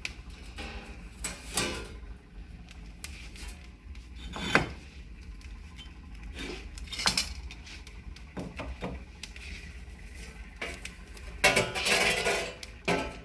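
Scattered metallic clinks and knocks as a thin metal sheet is handled and set in place to shield a rotisserie spit, with a louder clatter near the end.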